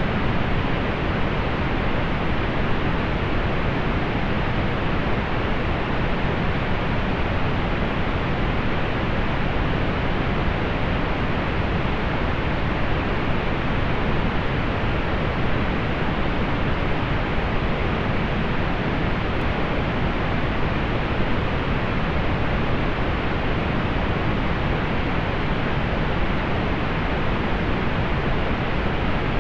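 Steady pink noise: an even, unchanging hiss weighted toward the low end, softer in the highs.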